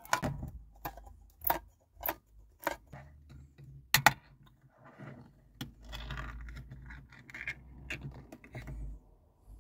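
A ring-pull tin can being opened by hand: a run of sharp metallic clicks and knocks as the tin is handled and the ring pull is worked, the loudest about four seconds in. Over the last few seconds the thin metal lid scrapes and tears as it is peeled back.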